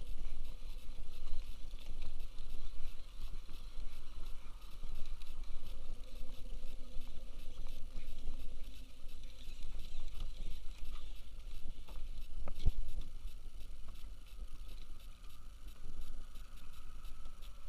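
Wind rumbling on the microphone with water lapping against a plastic kayak hull, scattered small clicks, and one sharper knock about two-thirds of the way through.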